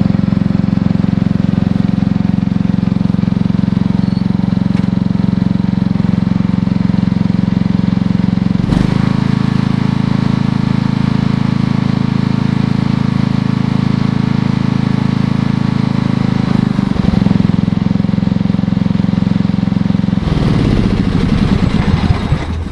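Riding lawnmower's engine running steadily. Near the end it is shut off, and its pitch falls as it spins down to a stop.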